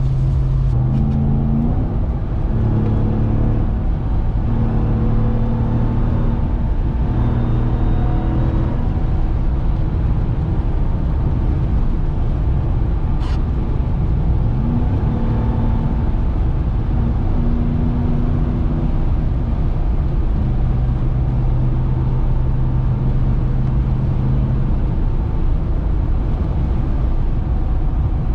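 Supercharged 6.2-litre Hemi V8 of a 2021 Ram 1500 TRX pickup running while driving. Its note steps up and down in pitch several times over a steady rush of tyre and road noise on a wet road. There is a single short click about halfway through.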